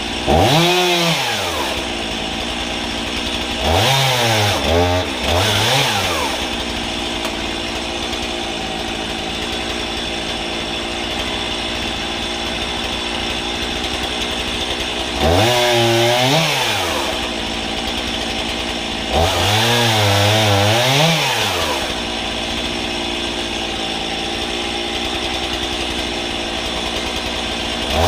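Gas chainsaw idling, then revving up in surges of a second or two, about six times, as it cuts logs into firewood lengths, settling back to idle between cuts.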